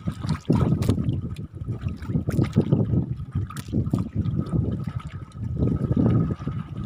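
Choppy seawater sloshing and splashing against a small fishing boat in strong waves, with irregular knocks and clicks.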